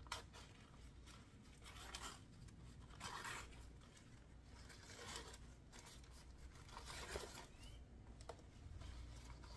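Plant packaging being torn and crinkled open by hand: faint tearing and rustling in several short bursts, with a sharp click right at the start and another near the end.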